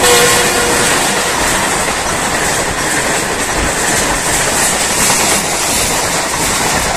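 Pakistan Railways passenger coaches passing close by on the adjacent track at about 105 km/h, a loud, steady rush of wheels on rail.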